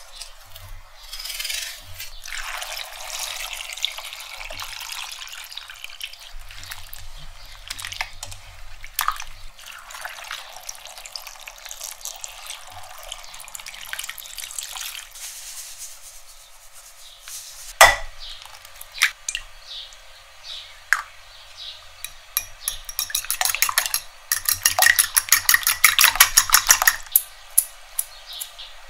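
Kitchen prep sounds: water pours into a steel pot of diced raw potatoes, with scattered clicks and a sharp knock of utensils. Near the end a fork beats eggs against a ceramic bowl in a fast, even run of clicks.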